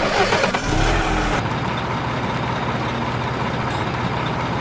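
Truck engine running steadily after a sudden loud start.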